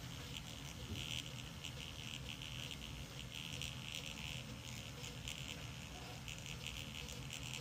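Testo handheld thermal printer printing out a combustion-analysis report: a high buzzing whine from its paper-feed motor, going in short pulses line by line.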